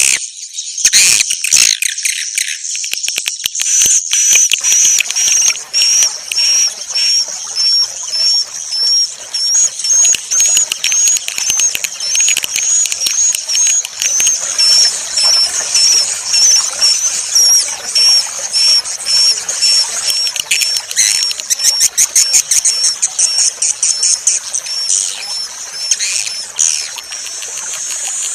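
A recording of bird calls played as a lure: high-pitched chirps repeated about twice a second, layered with fast, rattling trills.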